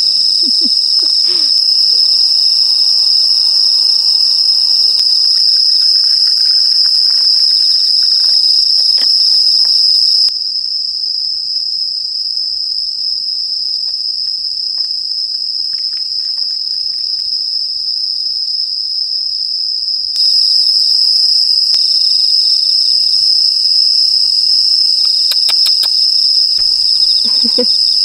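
Night insects, crickets among them, singing in a steady, unbroken high-pitched chorus. It turns quieter for about ten seconds in the middle, then returns to full strength.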